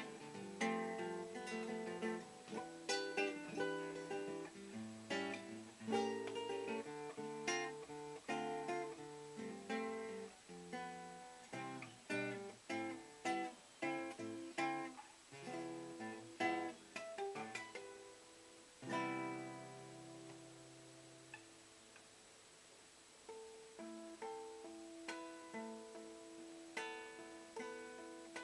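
Solo acoustic guitar played fingerstyle, with single notes and chords in a lively rhythm. About two-thirds of the way through, a strummed chord rings out and fades for a few seconds before softer picking resumes.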